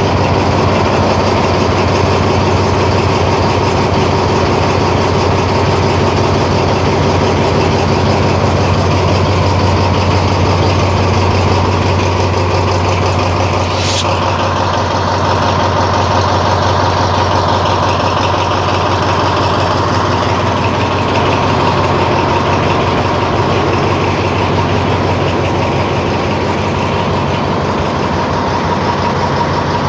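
Diesel-electric locomotive D.4303's engine idling with a steady low hum and a thin steady whine over it. A brief sharp hiss of air cuts in about halfway through.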